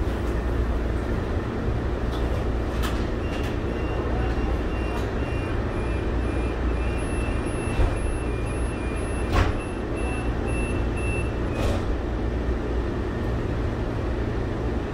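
Siemens SD160 light rail car standing at a station, its onboard equipment giving a steady low hum. A run of short, high electronic beeps sounds for several seconds in the middle, with a few sharp clicks and knocks.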